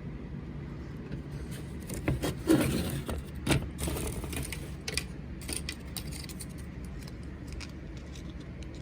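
Handling noise of a smoke detector and its packaging being unpacked: rustling and sharp plastic clicks from about two to six seconds in, over a steady low hum.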